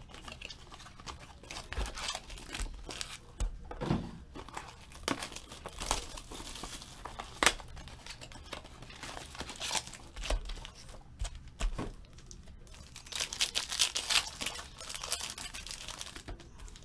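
Trading-card pack wrappers being torn open and crinkled by hand: foil and plastic wrapping crackling in irregular bursts, busiest near the end.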